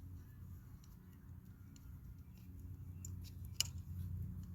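A few faint, scattered small clicks and one sharper click about three and a half seconds in, from hand tools and parts being fitted while fastening an e-bike's components, over a steady low hum.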